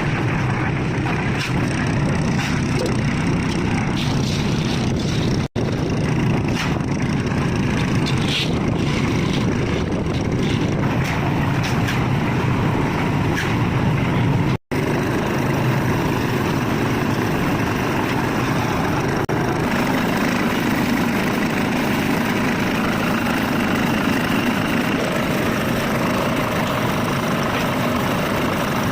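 Construction machinery running steadily during a concrete pour, a dense engine-like drone. It cuts out briefly twice.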